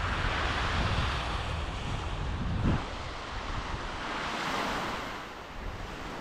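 Small surf breaking and washing up a sandy beach, with wind buffeting the microphone. A single thump about two and a half seconds in.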